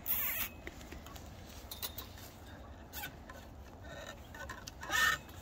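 Two short rustling, scraping bursts of handling noise, one at the start and one near the end, with faint ticks and rubbing between, as a wooden post is worked against a chain-link fence.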